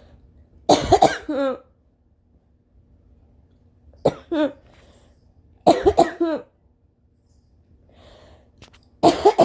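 A woman coughing violently and mostly uncovered, in four short fits of two or three hard coughs each, every cough ending in a throaty tone that falls in pitch. The fits come about a second in, around four and six seconds in, and again near the end.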